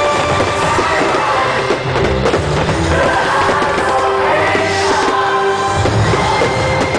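Loud show music with held tones over a deep bass.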